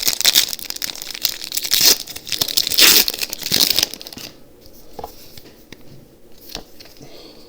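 Foil wrapper of a Pokémon trading card booster pack being torn open and crinkled for about four seconds, then quieter, with a few faint taps.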